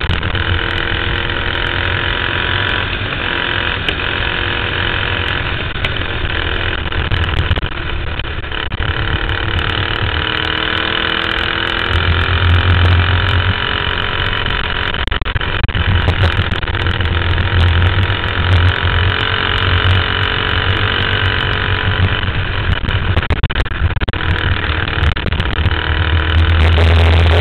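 Dirt-track racing kart engine, heard onboard, running hard through a race heat, its pitch rising and falling over and over as the driver gets on and off the throttle through the corners, with a heavy low rumble coming and going.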